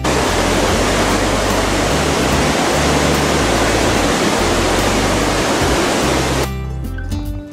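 Loud, steady rushing roar of the Vis waterfalls at the Moulins de la Foux, with a low music bass line underneath. About six and a half seconds in the roar cuts off and music with clear notes takes over.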